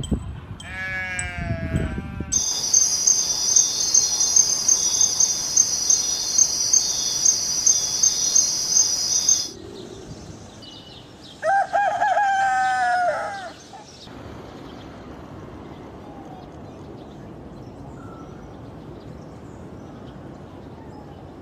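A bleat from the grazing flock at the start, then a steady high insect trill with regular pulses for several seconds. About halfway through a rooster crows once, a rising then falling call lasting about two seconds, followed by quiet outdoor background.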